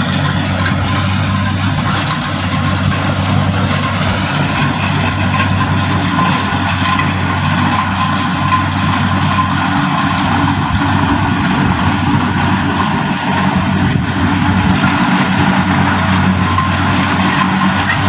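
A rice combine harvester running steadily as it cuts ripe rice: a continuous engine drone with a constant low hum.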